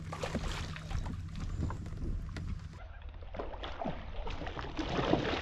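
Water lapping against a fishing kayak's hull in many small, irregular slaps and splashes, over a steady low hum.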